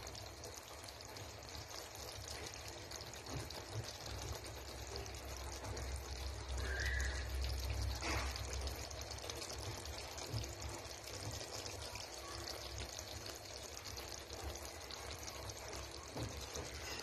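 Tomato sauce simmering gently in a pan of chicken: a steady soft hiss with many tiny pops, over a low hum, with a single click about eight seconds in.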